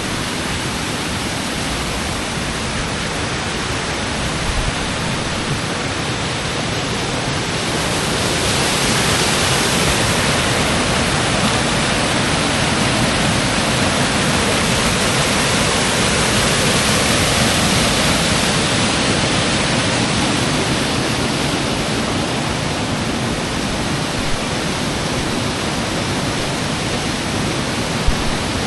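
Waterfall and stream cascading over rocks: a steady rush of falling water, swelling louder for a while through the middle.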